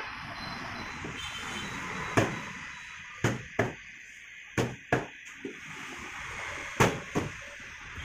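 A long fish knife chopping through a parrotfish fillet onto a wooden log chopping block: about seven sharp knocks, several coming in quick pairs, over steady background noise.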